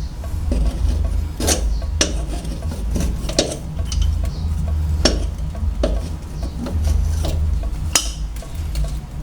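Metal clinks and scraping from pliers working on faucet hose fittings under a kitchen sink, with a half-dozen irregular sharp knocks.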